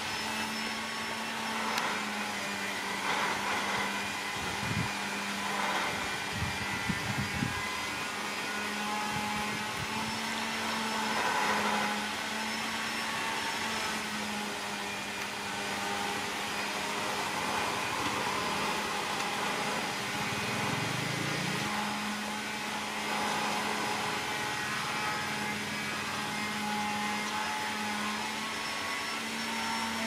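Steady mechanical hum from an unseen motor, with a faint high whine above it and a few soft knocks in the first several seconds.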